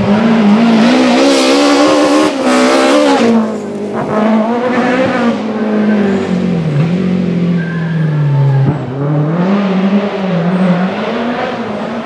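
BMW M3 E30 Group A rally car's four-cylinder engine driven hard on a stage, its pitch climbing and dropping again and again with gear changes and lifts. It is loudest over the first few seconds, dips about three and a half seconds in, and then keeps rising and falling.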